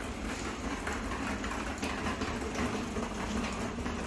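Steady low rumbling shop background noise with faint irregular clatter.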